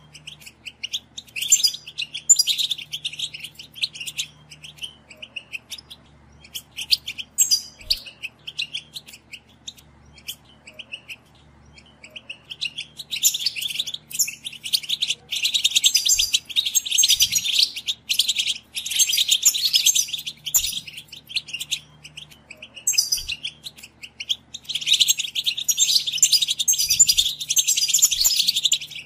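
European goldfinch twittering song, fast liquid chirps coming in short bursts at first, then in long unbroken runs in the second half.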